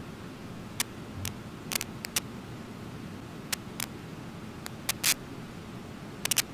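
Steady low rush of water pouring over Brooks Falls, with about a dozen sharp clicks at irregular moments. The loudest click, slightly longer than the rest, comes about five seconds in.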